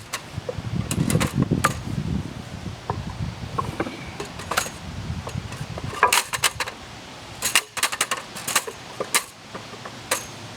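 Wooden boards knocking and clacking together as they are handled and loaded, a dozen or so sharp knocks with a low rumble in the first couple of seconds.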